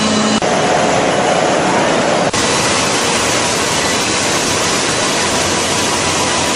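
Steady, loud roar of biscuit production-line machinery on a factory floor: an even noise with no distinct rhythm. It shifts abruptly about half a second in and again about two seconds in.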